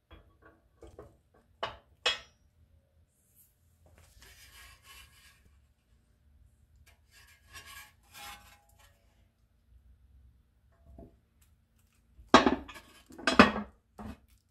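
Metal parts of a John Deere 520 pedal tractor being handled and fitted together: light clinks and two sharp knocks at the start, then scraping and rubbing. Near the end come two loud knocks with a short rattle as the painted upper body half is set down and seated onto the lower half.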